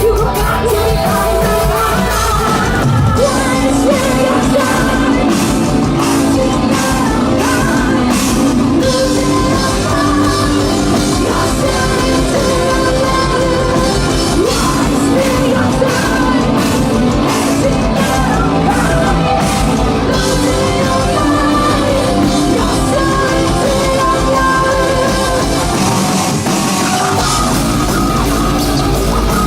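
A metal band playing live in a large hall: loud distorted guitars, bass and drums under sung and screamed vocals. The lowest bass drops out briefly near the end, then the full band comes back in.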